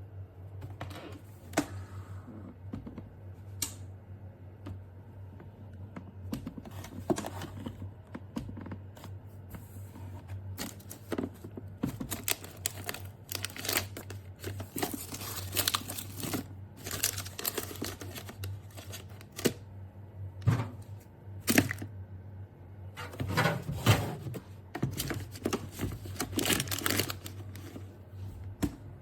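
Packaging being handled: plastic and paper crinkling and tearing in irregular bursts, busiest in the second half, over a steady low hum.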